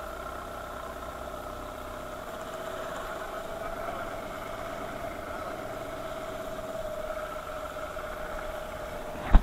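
A small fishing boat's motor running steadily under way, a constant hum at an even pitch. A single sharp knock comes just before the end.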